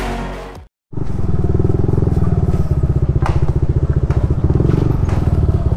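Background music fading out in the first moments, then after a brief cut a Yamaha scooter's engine running at low speed with an even, rapid pulsing beat. A couple of light knocks sound over it.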